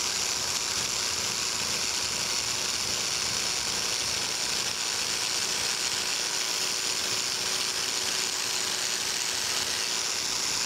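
Biax electric power scraper running steadily, its reciprocating blade scraping a cast-iron dovetail way to take down the high spots shown by the ink transfer.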